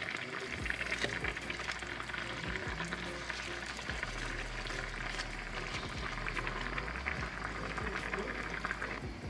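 Fish broth simmering in a pan on a gas hob: a steady crackling bubble that dies down near the end as a lid goes on.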